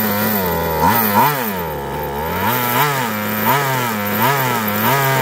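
Small petrol engine of a 1/5-scale Exceed Barca 4x4 RC buggy, revved up and down again and again. It runs steadily at first, drops in pitch, then gives about six quick throttle blips in a row.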